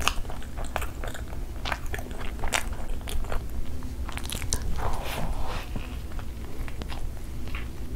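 Close-miked eating: a person biting and chewing a toasted chicken shawarma wrap, with many sharp crunches and crackles from the crisp wrap, the densest crunching about five seconds in.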